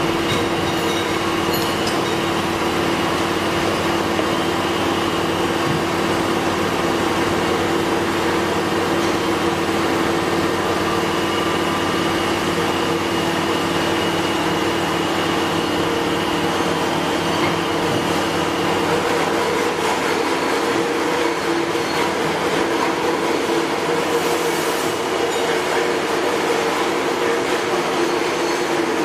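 Machine running steadily: a constant mechanical drone with a few held tones, including a faint high tone that comes and goes.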